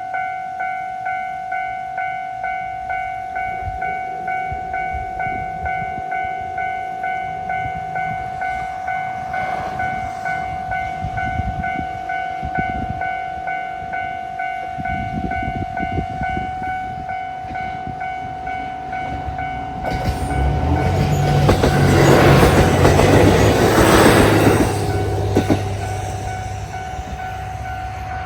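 Japanese railway level-crossing warning bell ringing in a steady, even repetition of about two strokes a second. Under the bell a train approaches and passes, its wheel clatter and engine drone growing to the loudest point in the last third before fading again. The train is a Resort Shirakami HB-E300 series hybrid diesel train.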